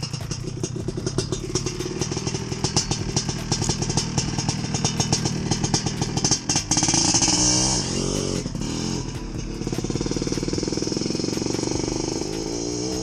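Suzuki RM125 two-stroke dirt bike engine running with a rapid, even firing beat. It revs up and down a few times around the middle, then settles back to a steady low speed.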